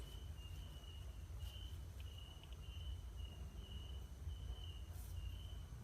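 Faint high-pitched chirping from a small calling animal, repeated in short even pulses about twice a second, over a low rumble.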